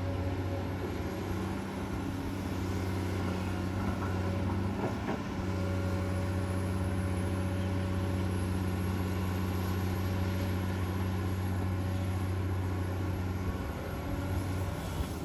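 Komatsu PC200-8 excavator's six-cylinder diesel engine running steadily, briefly dipping about five seconds in.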